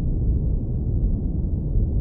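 Steady brown noise filtered down to a deep, warm rumble, with nothing in the high end.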